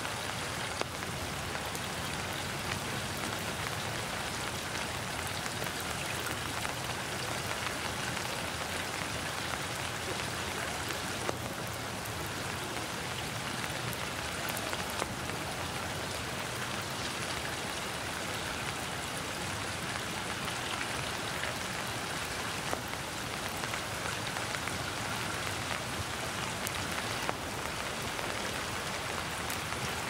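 Steady rain falling on trees and ground, with scattered single drops ticking louder now and then.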